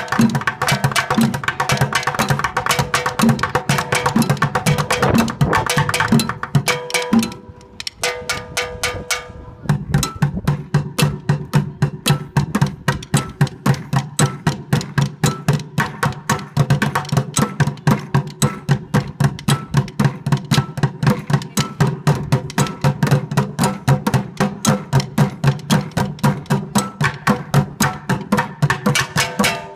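Group bucket drumming: many drumsticks beating upturned plastic buckets in a steady, fast rhythm, with the sharp clack of sticks. About seven seconds in the playing drops to a softer passage for a couple of seconds, then the full group comes back in with heavy, regular beats.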